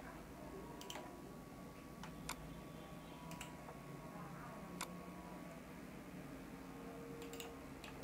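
Faint computer mouse clicks, a few scattered single clicks over several seconds, over a low steady room hum.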